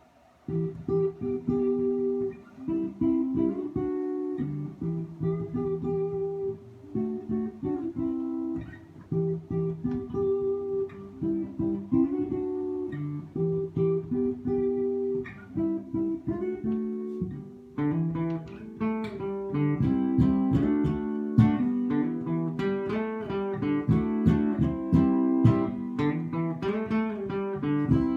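Acoustic guitar playing: picked notes and chords that start just after a brief near-silence, turning fuller and busier, more like strumming, about eighteen seconds in.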